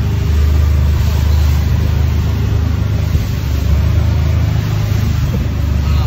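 Mercruiser 8.1 V8 inboard engine running steadily with the boat under way at speed, a low drone under the rush of wind and churning wake water. The engine's broken cylinder 2 intake valve spring has been replaced.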